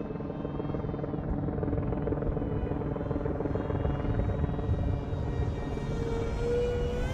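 Electric RC jet's Himax HC2208 brushless outrunner and three-blade 7-inch propeller whining steadily in flight, over a low rumble, the pitch rising near the end.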